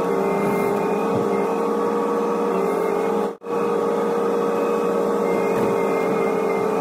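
Hitachi ZX125W wheeled excavator's diesel engine and hydraulics running steadily, heard from inside the cab, with a steady tone over the engine noise. The sound cuts out for an instant about halfway.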